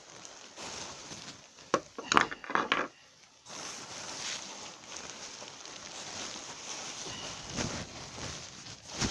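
Handling noise: a quick run of sharp knocks and clatters of small hard objects being moved and set down, about two seconds in, then a steady low hiss.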